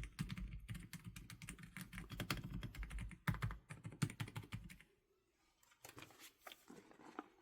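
Fast typing on a 토체프 301 computer keyboard: a dense run of keystrokes for about five seconds, then, after a short pause, a few scattered keystrokes.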